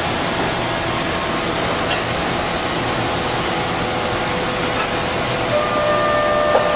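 Kitamura Mycenter horizontal CNC machining center milling with flood coolant: a steady hiss of coolant spray and cutting, with a thin steady whine that comes in stronger near the end.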